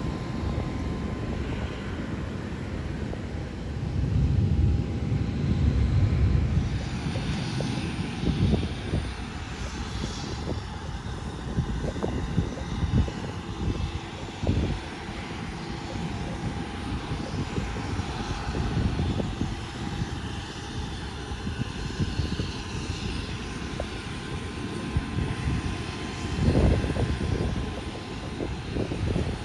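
Aircraft engine noise: a steady drone whose higher hiss grows stronger about seven seconds in.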